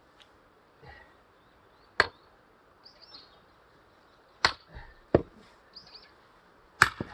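Axe blows splitting firewood: sharp strikes, the first about two seconds in, then two more in quick succession, and a close pair near the end.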